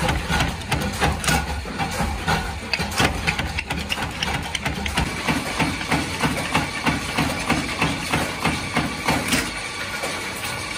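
Small flywheel-driven mechanical power press stamping metal strip into screw shell blanks: the punch strikes with a regular knock about twice a second over the steady hum of the motor and flywheel.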